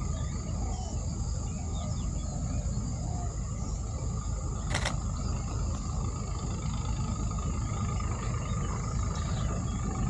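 Insects droning steadily outdoors, with a constant low rumble underneath and faint bird chirps; a single sharp click about five seconds in.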